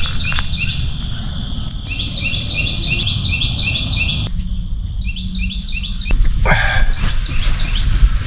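A songbird singing rapid runs of short, downward-slurred high notes, about five a second, breaking off and starting again several times, over a steady low rumble.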